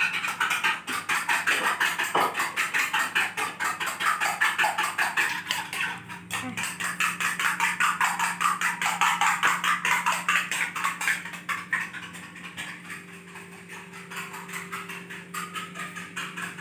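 Cooking oil sizzling and crackling in a stainless-steel frying pan under a slice of bread, a dense run of fast little pops that thins out in the second half, with a single knock about six seconds in.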